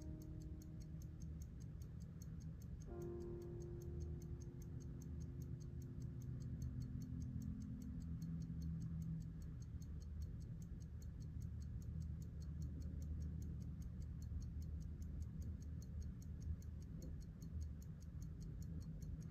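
A 1922 Elgin B.W. Raymond 19-jewel railroad-grade pocket watch ticking in a quick, even beat. Soft, held music chords sound beneath it; a new chord comes in about three seconds in and fades away over the next several seconds.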